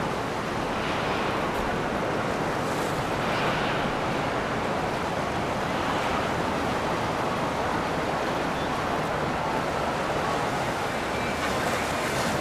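Steady rushing noise of wind and water.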